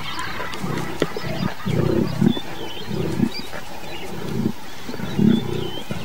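Lions growling in a series of short, rough bursts while feeding on a fresh kill, typical of pride members snarling at one another over the carcass.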